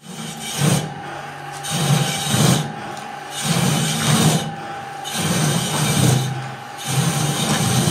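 Handmade rotary veneer peeling machine running, its knife shaving a continuous sheet of veneer off a turning log. The rasping noise swells and eases in a steady rhythm about every second and a half to two seconds, over a steady high hum.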